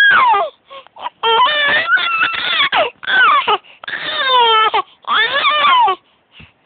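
A baby crying in a run of about five high-pitched wails, each half a second to a second long and mostly falling in pitch, with short gaps between them.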